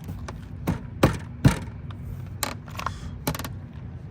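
Plastic trim on a car's rear bumper being pushed and knocked back into its clips: about half a dozen irregular knocks and clicks, the loudest two between one and one and a half seconds in.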